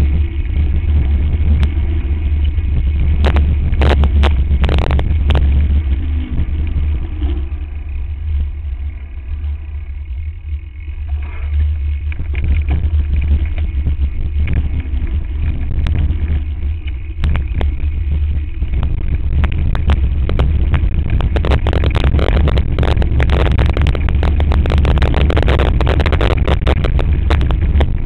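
Wind buffeting the microphone of a camera on a mountain bike running fast down a rough dirt trail, with the bike rattling and knocking over rocks and ruts. Quieter for a few seconds near the middle, then a dense, continuous clatter over the last third.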